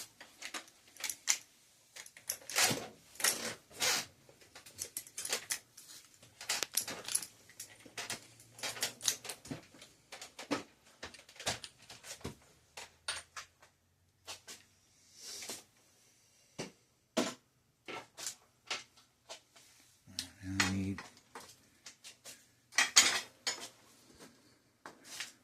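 Irregular metallic clinks and clicks of hand tools on bicycle handlebar parts: locking pliers (vise grips) gripping and working at a stuck clamp. A brief low voice-like sound comes about twenty seconds in.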